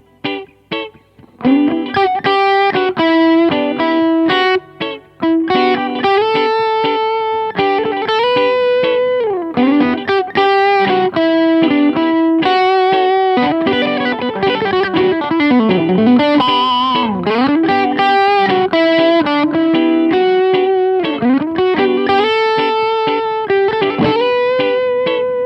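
2023 Gibson ES-335 semi-hollow electric guitar played through an amp. After a few short notes with gaps at the start, it plays a flowing melodic line with string bends and vibrato.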